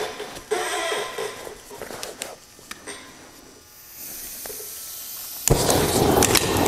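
Cutting torch being lit: a few clicks and handling sounds, gas hissing from the tip from about four seconds in, then it ignites with a sudden pop about five and a half seconds in and the flame burns with a loud, steady rush.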